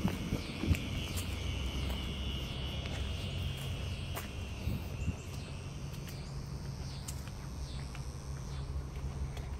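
Outdoor ambience: a steady high insect buzz that fades after about five seconds, over a low rumble, with a few footsteps and some short chirps in the second half.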